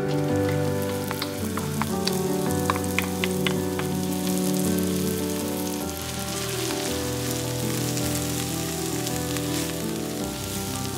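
Chopped onions sizzling in hot olive oil in a wok, with a scatter of sharp crackles and ticks in the first few seconds as they land and are stirred, then a steady frying hiss. Background music plays underneath.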